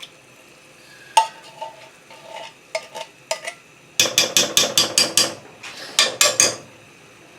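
A spoon clinking and scraping against cookware while stirring or scooping out thick coconut cream: a few separate taps, then about a second in the middle of quick, rapid strokes, and a shorter run of strokes near the end.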